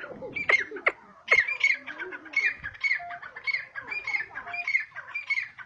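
Grey francolin calling: a run of short, shrill notes repeated two to three times a second, with a few sharp chirps just before the run begins.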